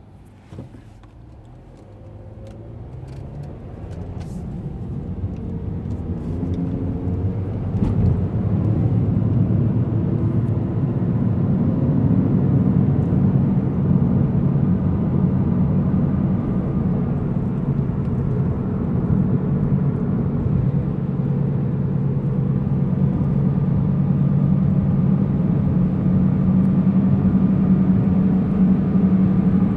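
A car gathering speed, its low hum growing louder and slightly higher over the first several seconds, then holding steady at speed. The owner suspects the noise, which gets loud under acceleration and comes from the front driver's side, is possibly a bad wheel bearing.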